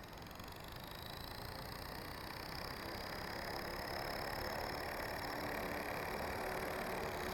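Blade 450 3D electric RC helicopter's motor running up, a high whine that rises slowly in pitch and grows steadily louder. The main gear has lost many teeth, so the motor's pinion is not meshing with it properly.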